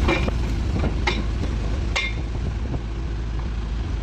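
Excavator engine running steadily with a deep rumble, with two sharp knocks about one and two seconds in.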